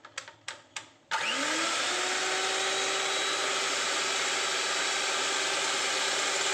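Electric hand mixer beating eggs in a glass bowl. After a few light clicks, the motor switches on about a second in, rises quickly in pitch as it spins up, then runs at a steady whine.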